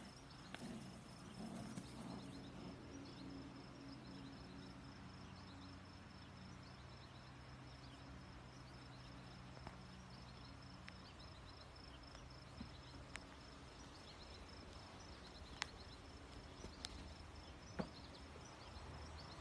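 Faint insects chirping steadily outdoors, a high trill broken at regular short intervals, over a low hum that stops about two-thirds of the way through. A few sharp clicks come near the end.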